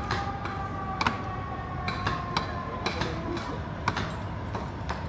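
Irregular sharp knocks and clanks, a few a second, over a steady low rumble, with a faint tone sliding slowly down in pitch.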